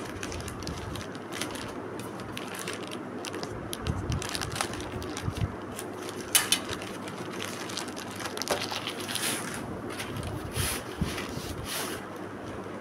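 Hands opening a parcel and handling a rolled shelf liner sheet: crinkling and scraping of packaging, with a sharp crackle about six seconds in and a few brief swishes near the end.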